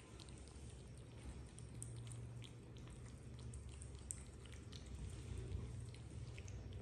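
Two kittens lapping and smacking a creamy food: faint, irregular wet clicks, several a second, over a low steady hum.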